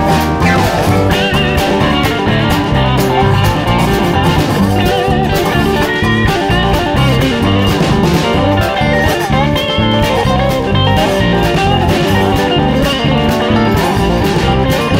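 A live band playing a blues-tinged instrumental: electric guitar over keyboard and a drum kit, with steady drum hits throughout.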